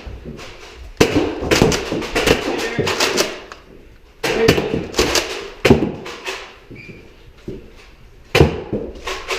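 Clusters of sharp knocks and thuds from Nerf Rival blasters firing foam balls and the balls striking office walls, desks and furniture. The clusters come about a second in, again about halfway, and briefly near the end.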